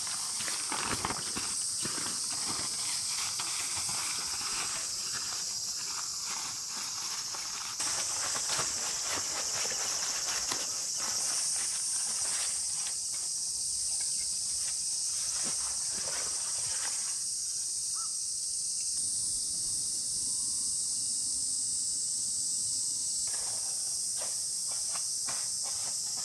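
A steady, high-pitched chorus of summer insects, shifting in strength a few times, with scattered clicks and rustles of something being handled close by during most of the first two-thirds and again near the end.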